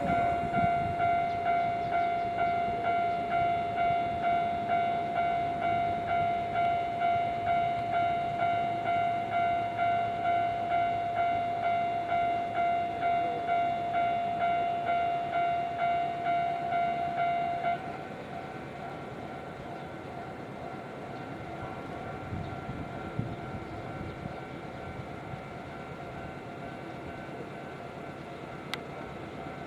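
Japanese level-crossing warning bell ringing in a steady electronic ding-ding pulse about twice a second, the alarm that a train is approaching or passing. It stops abruptly about 18 seconds in, leaving quieter background noise.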